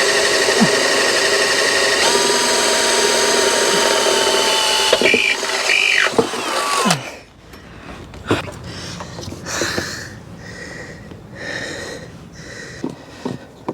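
Electric drill running steadily for about seven seconds, its pitch stepping up about two seconds in, then stopping. After it stops come scattered clicks and knocks of handling.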